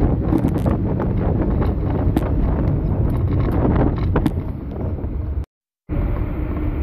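Wind buffeting the microphone over the low rumble of a moving car. The sound drops out for a split second about five and a half seconds in.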